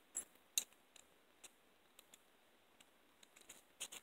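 Faint, irregular small metallic clicks of hinged steel handcuffs and their key being handled, with the key being fitted to the cuff's lock.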